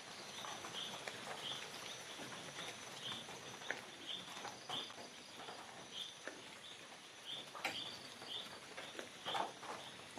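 Tropical forest ambience: a short high chirp repeats every half second or so over a steady high insect drone, with scattered faint ticks and rustles.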